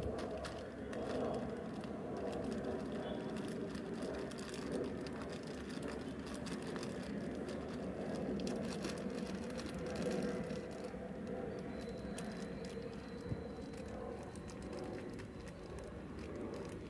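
Clear plastic bag crinkling and rustling as hands squeeze and pack moist cocopeat around a hibiscus stem for an air layer. Under it runs a steady low background hum.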